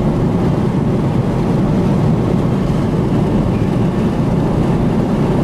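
Steady road and engine noise inside a vehicle's cabin while cruising on a highway: an even low rumble that holds without change.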